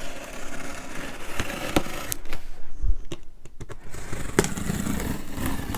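A utility knife with a fresh blade slicing through packing tape and cardboard along a box seam: a scratchy cutting noise with small clicks. It pauses about two and a half seconds in and starts again about a second later.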